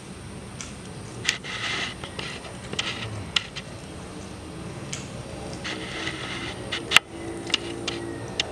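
Mouth sounds of eating curried snails: short bursts of sucking and smacking, broken by a few sharp clicks, the loudest about seven seconds in.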